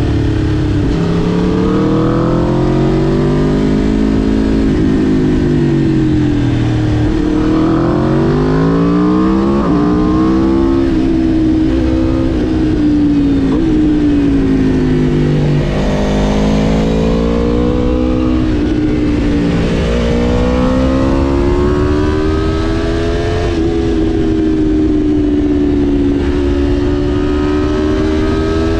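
Aprilia RSV4 Factory's V4 engine under way, revs climbing and falling again and again as the motorcycle accelerates, shifts and slows, with a sharp climb about halfway through.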